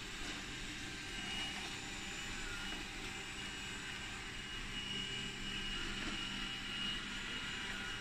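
Xiaomi Mijia 1C robot vacuum running as it cleans: a steady whir of its suction fan and brushes, with a thin high whine over it.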